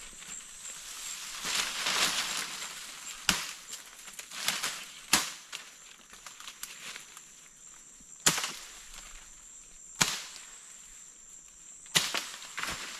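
Sharp wooden knocks as a long pole is jammed and struck against a palm tree: five of them, spaced about two seconds apart, with leaf rustling early on. A steady high-pitched whine runs throughout.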